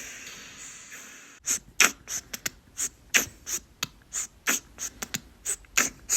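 Short sharp hits chopped from a door-slam sound effect and sequenced into a fast, stuttering rhythm of several hits a second, starting about a second and a half in after a fading tail.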